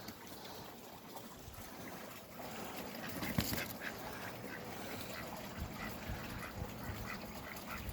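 Ducks feeding on worms, with soft quiet duck calls and a scatter of small ticks from their bills pecking and dabbling.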